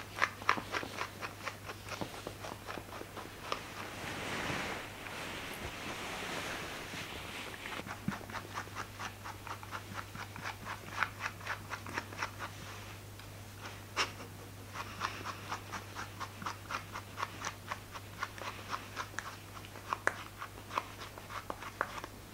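Pet brush strokes through a toy poodle's curly coat: quick, scratchy strokes about three to four a second, with a few seconds of fabric rustling about four seconds in. A faint low hum runs underneath.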